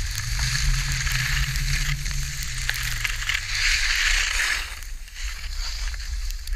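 Skis hissing and scraping over packed snow on a downhill run, with wind rumbling on the action camera's microphone. A longer, louder scrape comes about three and a half seconds in, and the sound drops back after it.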